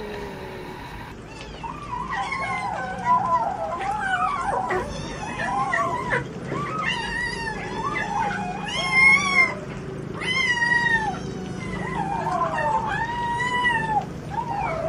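Cat yowling over and over in long, wavering calls, starting about a second in.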